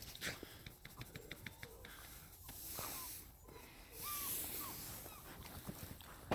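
Belgian Malinois puppies sniffing and snuffling with breathy wheezes, with a few brief faint squeaks and light clicking.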